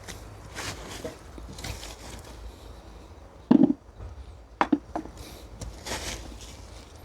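Digging through soil in a potato bed: rustling scrapes of earth, and a few dull knocks, the loudest about three and a half seconds in, followed by three lighter ones a second later.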